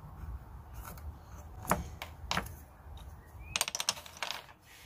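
Light clicks and taps of a pencil, a metal square and a small pine lure blank being handled and set down on a wooden workbench: a few single taps, then a quick run of clicks about three and a half seconds in.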